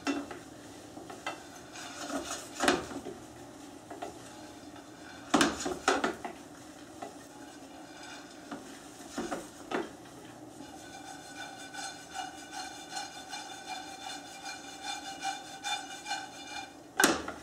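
Wooden spatula stirring and scraping bread cubes as they fry in butter in a stainless steel pan, with knocks against the pan every few seconds, the loudest a little over five seconds in and near the end. The light crisp rattle of the cubes is the sign of the croutons turning crisp. A faint steady whine comes in about ten seconds in.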